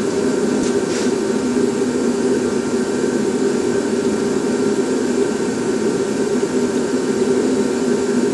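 Forced-air torpedo heater running steadily: a constant rushing blower hum, with two faint clicks about a second in.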